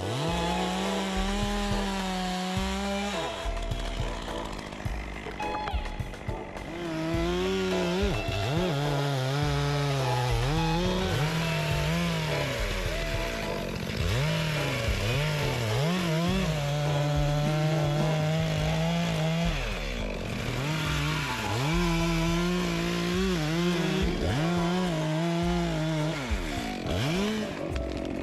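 Stihl two-stroke chainsaw running at high revs while cutting, its engine pitch dipping and recovering again and again as the chain loads in the wood.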